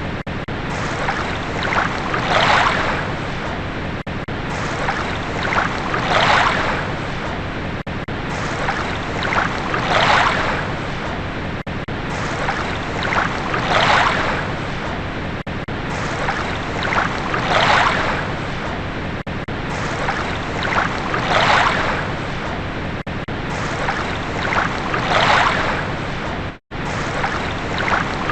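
Water washing in as waves, a rushing swell that rises and falls about every four seconds. The sound cuts out for an instant near the end.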